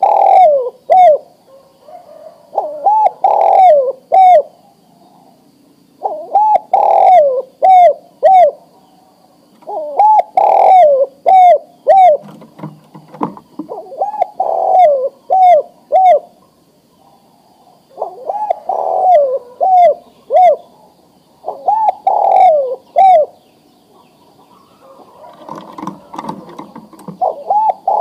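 Male spotted dove (tekukur) cooing its breeding call to a female: short phrases of three or four low coos, repeated about every four seconds, with a rougher, blurred phrase near the end.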